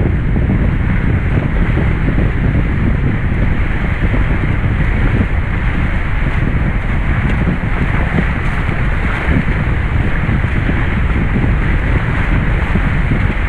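Steady wind buffeting the microphone over water rushing and splashing past the hulls of a Hobie 16 catamaran under sail.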